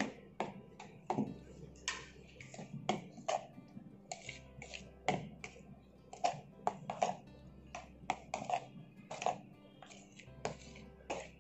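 A spoon clicking and tapping against a plastic bowl while stirring egg with chopped okra, onion and green chilli: irregular sharp clicks, several a second, over background music.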